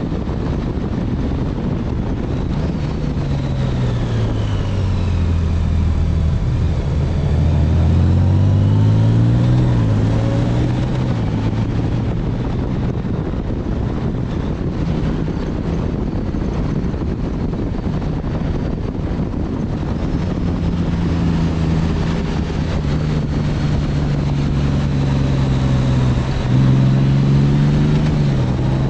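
Motorcycle engine running under way with wind rush. The engine note drops as it slows a few seconds in, climbs back up around the tenth second, and rises again near the end.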